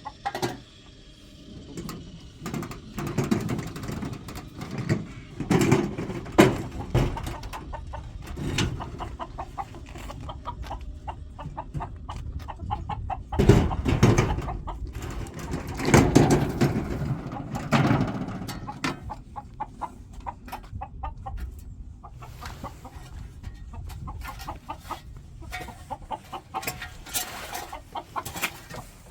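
Chickens clucking on and off, several calls louder than the rest, with a quick run of short clucks near the end.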